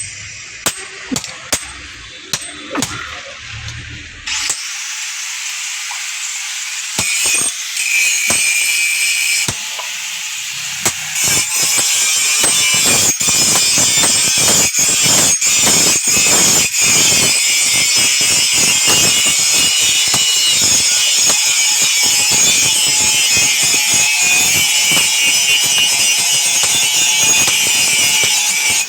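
A steel machete blade being worked with hand tools: a few sharp hammer knocks at the start, then continuous rasping of metal on metal that grows louder and denser a few seconds in, with a run of sharper strokes partway through.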